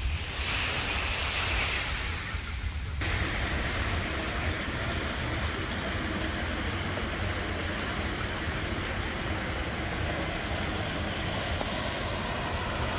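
Steady rush of splashing water from a fountain's jets and water pouring over rocks. For the first three seconds it is a lighter surf-and-wind hiss, then it switches abruptly to the fuller, even rush of water.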